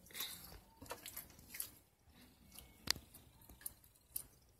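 Pink slime being squeezed and kneaded by hand, giving faint, irregular sticky squishes and clicking pops.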